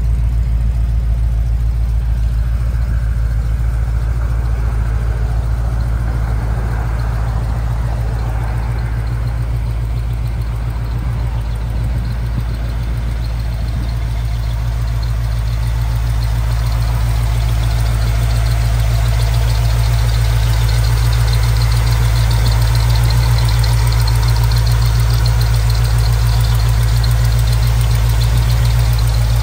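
Chevrolet V8 in a 1980 Chevy K10 pickup idling steadily, a deep even rumble that grows a little louder in the second half.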